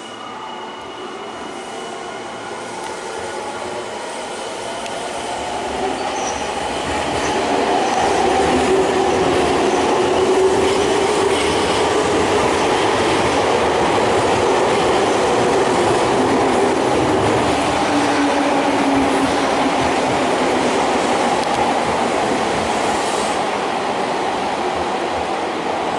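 Nankai electric commuter train running through the station without stopping. The noise builds over the first several seconds as it comes close, then stays loud with wheels on the rails and a pitched motor hum that slides downward in the middle, before easing a little near the end.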